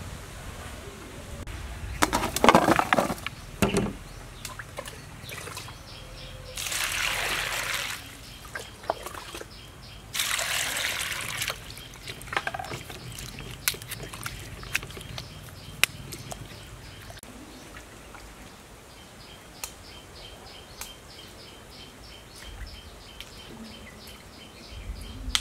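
Water sloshing and splashing in a metal basin as ginger rhizomes are washed by hand. There are three loud splashing bouts in the first half, then quieter dabbling with small knocks.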